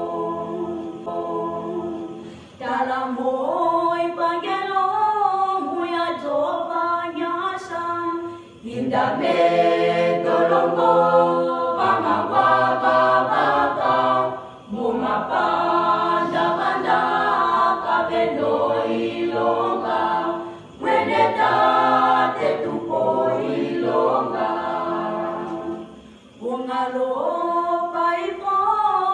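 Mixed-voice school choir of about ten girls and boys singing a cappella in harmony, in phrases broken by short breaths roughly every six seconds.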